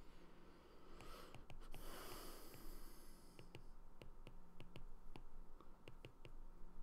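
Stylus tips tapping and clicking on a tablet's glass screen in short, irregular strokes as equations are handwritten. A long breath is heard from about one to three and a half seconds in.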